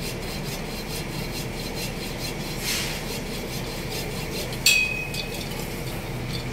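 Steady background noise with faint ticking, broken about two-thirds of the way through by one sharp metallic clink that rings briefly.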